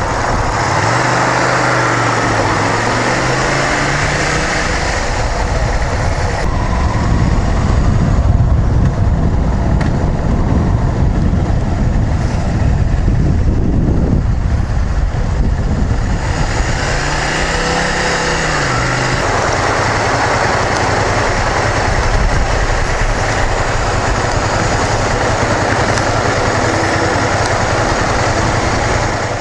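Honda VTR250's V-twin engine running under way, with wind and road noise over the microphone. The engine pitch rises and falls shortly after the start, and again about sixteen to nineteen seconds in.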